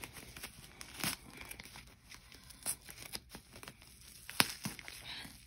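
Paper label band being torn off a rolled reusable bed pad: paper tearing and crinkling in irregular crackles, with sharper rips about a second in and near the end.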